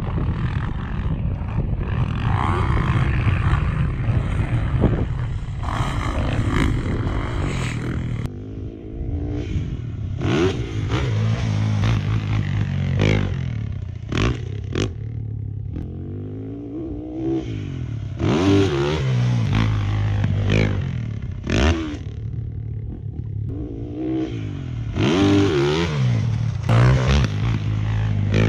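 Dirt bike engine being ridden hard: it revs up and backs off over and over, its pitch climbing and dropping several times.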